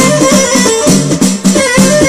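Live Moroccan chaabi music: a melodic instrument repeats a short phrase over hand-beaten frame drums, with no singing.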